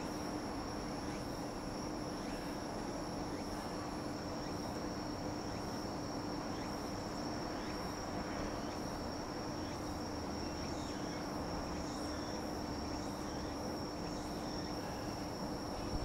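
Crickets trilling steadily in one continuous high note, over an even background noise and a steady low hum.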